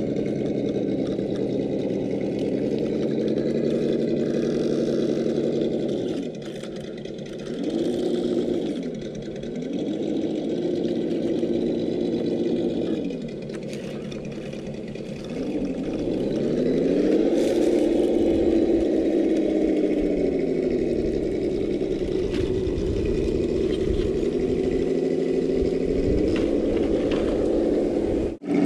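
Traxxas TRX-4 Defender RC crawler's electric motor and geared drivetrain whining as it crawls over a boulder, the pitch falling and rising again several times with the throttle and climbing highest about two-thirds of the way through. It cuts off abruptly just before the end.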